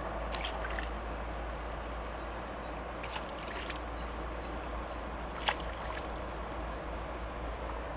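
Hooked fish thrashing at the water's surface near the bank, splashing and sloshing, with many scattered sharp ticks and clicks.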